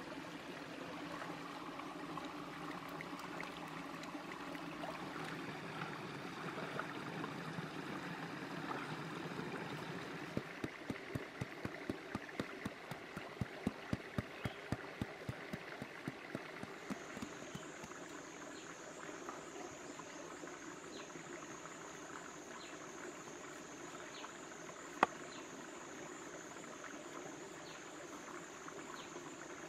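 Stream water running steadily. In the middle, a cleaver chops into a green papaya about three times a second for some five seconds, the usual scoring before it is shaved into shreds. Later, a steady high insect drone sets in, with one sharp knock near the end.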